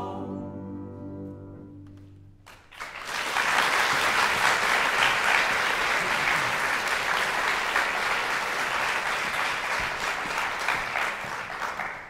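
A men's chorus's held final chord fading away, followed about three seconds in by an audience applauding.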